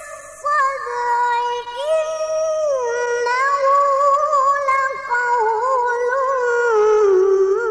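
Female Qur'an reciter (qari'ah) in melodic tilawah style, holding long, ornamented vowels whose high pitch glides up and down. She takes a short breath about half a second in, and the line settles lower near the end. It is an old cassette-tape recording.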